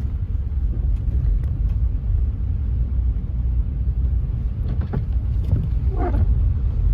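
Steady low rumble that flutters in loudness, with a brief faint wavering voice-like sound about six seconds in.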